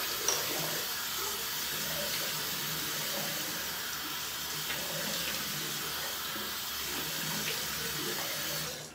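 Bathroom sink tap running steadily into the basin, shut off abruptly near the end.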